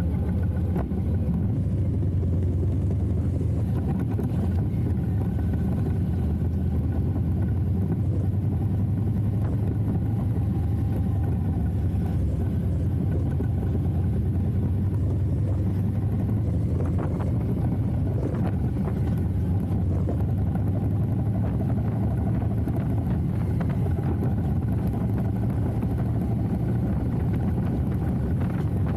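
Harley-Davidson Heritage Classic (FLHC) V-twin with Vance & Hines Eliminator 300 slip-on mufflers, running steadily under way with a deep, even exhaust note.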